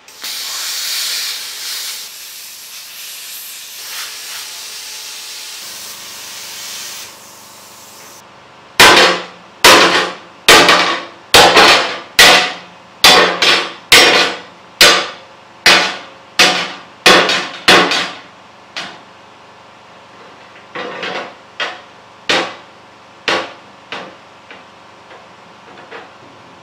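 Plasma cutter hissing steadily as it cuts through steel plate for about seven seconds. Then a ball-peen hammer strikes the cut-out steel panel to knock it free: about fifteen heavy, ringing blows, roughly one and a half a second, then lighter, sparser taps near the end.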